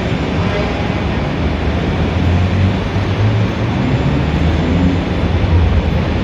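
Busy city street ambience: a steady wash of traffic noise, with a deep low rumble from a passing heavy vehicle swelling up from about a second and a half in and easing off near the end.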